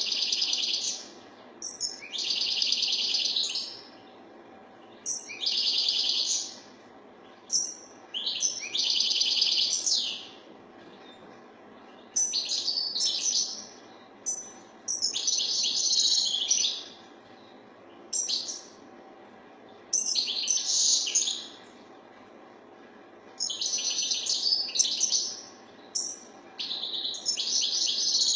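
European goldfinch (maqnin) singing: fast, twittering song phrases one to two seconds long, repeated about every two to three seconds with short pauses between them.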